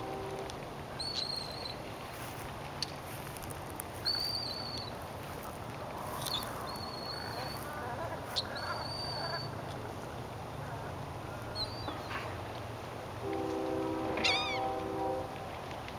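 Birds over open water calling: a series of thin, high, level whistled calls about half a second to a second long, then a quick falling run of short high notes near the end. A low steady rumble lies underneath, and a brief low droning tone sounds near the end.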